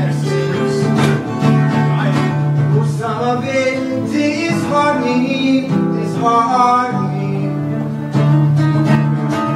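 A man singing live to his own guitar playing, with the voice most prominent in the middle few seconds over steady guitar chords.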